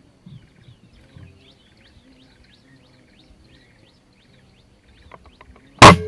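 Birds chirping, a run of short rising notes in quick succession, then a few light clicks and, near the end, a single sharp air-rifle shot, the loudest sound.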